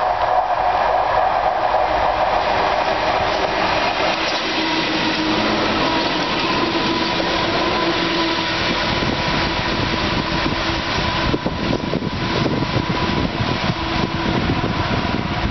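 Two NR class diesel-electric locomotives running coupled as a light engine, with no wagons behind, approach and pass close by with a steady engine drone over a continuous rumble, then draw away.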